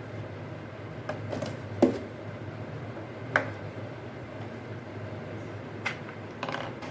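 Plastic parts of a switched-off steam vaporizer being handled and changed over from the face mask to the nose attachment: a scattering of sharp clicks and knocks, the loudest about two seconds in.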